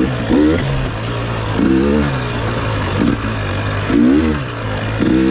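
KTM 300 XC-W's single-cylinder two-stroke engine under throttle while riding, its pitch rising in short bursts about three times over a steady lower drone.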